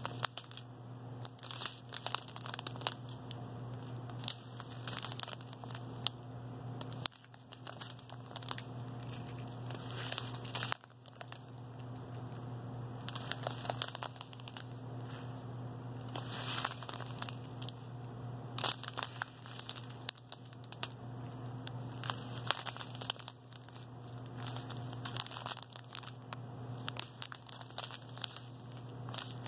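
Small clear plastic bags of diamond-painting drills crinkling and rustling as they are picked up and held up one after another, in irregular crackly bursts over a steady low hum.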